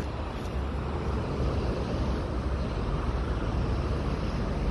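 Steady noise of heavy motorway traffic, with wind rumbling on the microphone.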